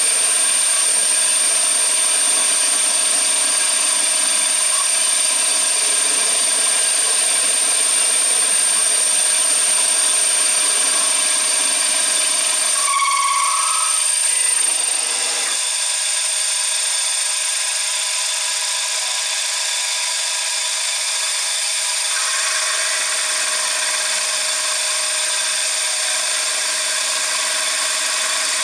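CNC machine running, a steady machine noise with a high constant whine, which shifts to a slightly quieter, different note about halfway through.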